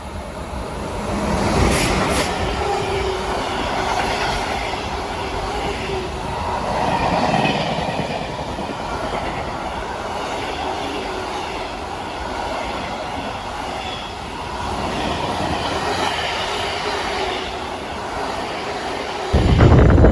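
A train passing on the line, steady rolling noise with wheel clatter that builds over the first two seconds and holds. A sudden, much louder low rumble comes in near the end.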